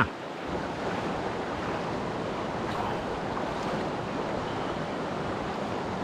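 Shallow creek water running steadily over stones, with some wind rumble on the microphone.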